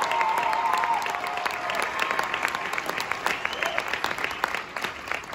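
Stadium crowd applauding and cheering, with a few shouts in the first two seconds; the clapping thins and dies down towards the end.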